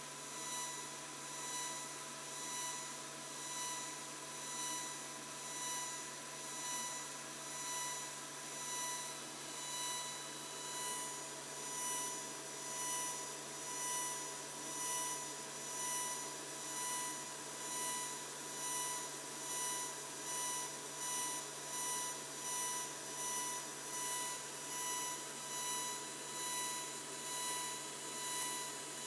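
Laser engraver marking a stainless steel money clip: a steady high whine with a low hum under it, pulsing in loudness about once a second.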